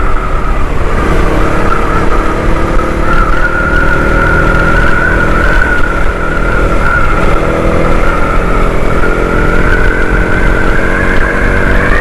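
Motorcycle engine running at road speed, heard from on the bike, with heavy wind rush on the microphone; the engine note climbs gently over the last few seconds as the bike speeds up.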